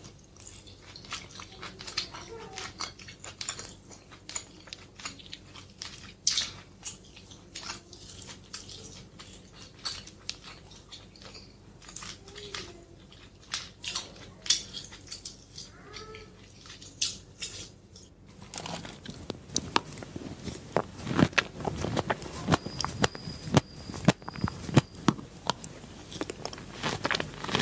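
Close-miked eating sounds: crisp bites and crunchy chewing, made of many short sharp crunches. About 18 seconds in the sound changes abruptly to a different recording, where the crunching is louder and comes thicker.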